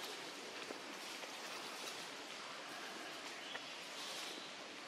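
Steady outdoor background noise, an even hiss with a couple of faint ticks and no distinct event.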